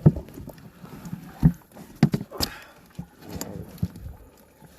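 A series of irregular knocks and thumps, about half a dozen, spaced unevenly.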